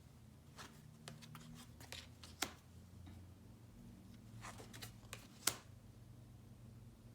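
Tarot cards being handled and turned over one by one: a scatter of light clicks and slides of card stock, with two sharper snaps of a card about two and a half and five and a half seconds in.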